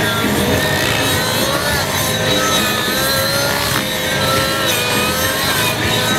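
Engine of a radio-controlled aerobatic model plane running as it hovers and tumbles, its pitch wavering up and down as the throttle is worked.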